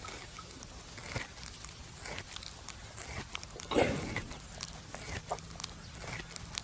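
Buffalo chewing the cud: a run of soft, crunching chews, with one louder, longer sound a little past the middle.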